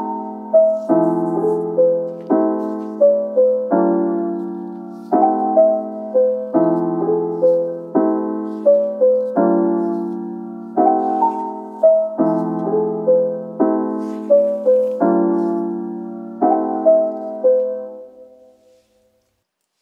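Background music: a gentle piano melody of struck notes that ring and die away, fading out to silence shortly before the end.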